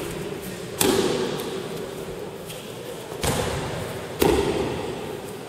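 Thrown aikido partners landing in break-falls on the tatami mats: three heavy thuds and slaps, one about a second in and two close together near the end, each echoing in the large hall.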